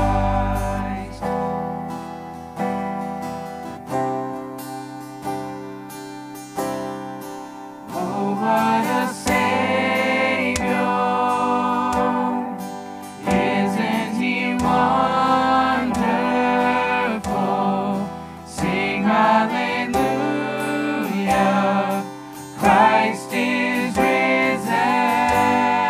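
Live church worship band playing a gospel song on acoustic guitar, electric guitar, keyboard and drums; a quieter instrumental stretch of ringing, fading chords, then several voices come in singing together about eight seconds in.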